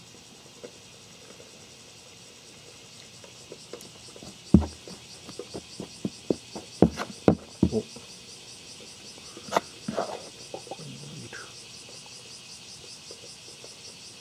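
Plastic spoon digging and scraping through beetle-rearing soil: a run of sharp scrapes and knocks from about four to eleven seconds in, the loudest about four and a half seconds in. Insects chirp steadily in the background, a fast high pulsing.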